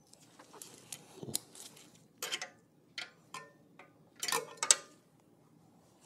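Metal hand tool clicking and clinking against the rear disc brake caliper's mounting bolts as they are tightened: a scattered run of short, sharp clicks, loudest near the end.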